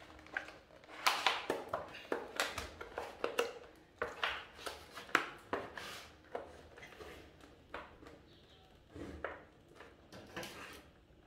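Stiff clear plastic packaging box being handled and opened, its seal pulled off: a run of irregular crackles and clicks, busiest in the first half.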